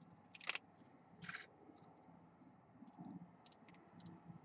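Faint, scattered clicks from a laptop being operated: two clearer clicks in the first second and a half, then lighter ticks spread through the rest.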